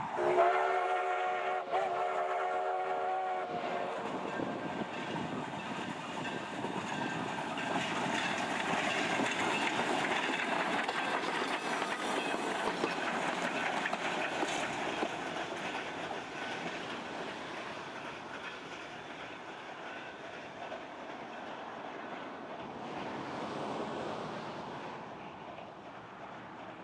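Durango & Silverton K-36 steam locomotive No. 480 sounds its steam whistle in one long blast of about three seconds, then passes close by with a loud rumble of running gear and wheels on the rails that slowly fades as it moves away.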